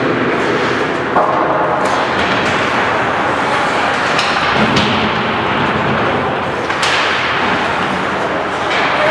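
Ice hockey rink during play: a steady wash of skates carving the ice and arena noise, broken by several sharp clacks and thuds of sticks, puck and boards.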